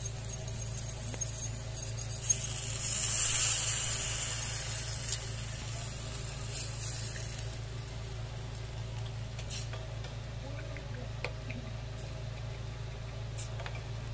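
A metal fork stirring cornstarch slurry in a bowl, then the slurry poured into a saucepan of sauce on a gas burner and stirred in with a wooden spatula. A loud hiss swells a few seconds in and fades, and a few light clinks come later.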